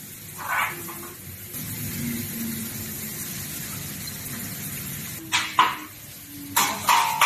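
Steel table-frame tubes knocking together as crossbars are set into the frame: a few sharp metal clanks near the end, the last ones ringing briefly.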